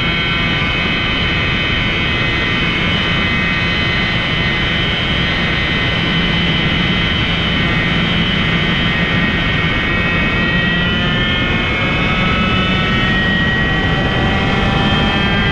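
IAME KA100 two-stroke kart engine running hard at high revs, its pitch climbing over the last few seconds as the kart accelerates, over a haze of wind and tyre noise.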